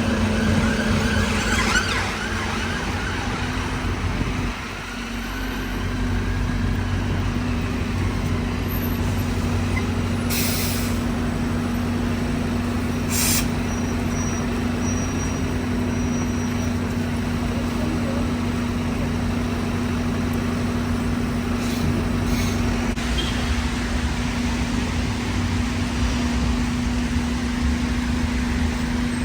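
Bus engine running while standing, a steady low droning hum amid street traffic, with two brief hisses about ten and thirteen seconds in.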